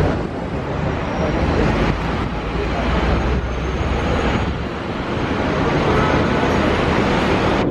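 Busy city street traffic noise, steady and heavy in the low end.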